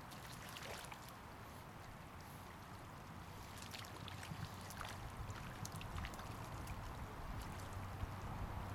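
Flowing river water with wind rumbling on the microphone. A run of small, sharp splashes from about three and a half to six seconds in, from a hooked trout thrashing at the surface.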